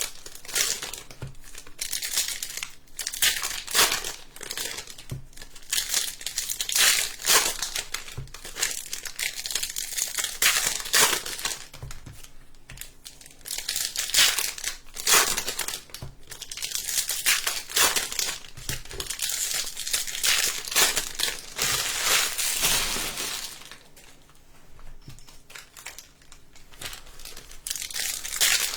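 Foil trading-card pack wrappers being torn open and crinkled, a dense crackling rustle that eases off for a few seconds near the end.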